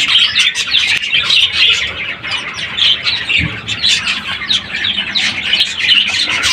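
A brood of chicks peeping continuously, a dense stream of short high chirps, with one soft knock about three and a half seconds in.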